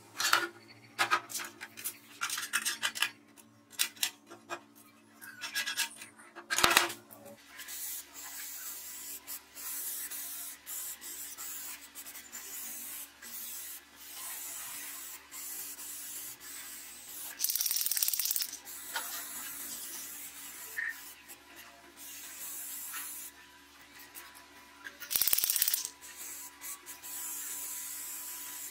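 Steel sheet parts clicking and knocking as a cover plate is handled onto a saw's blade guard, with one sharp knock about a quarter of the way in. Then an aerosol spray-paint can hisses in on-and-off bursts, two of them louder, as it coats a steel saw base.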